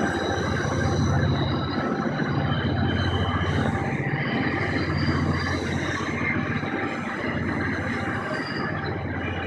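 Aurizon coal train going by: a loud, steady low rumble of rolling stock on the track that dips briefly every few seconds, with thin high-pitched tones above it.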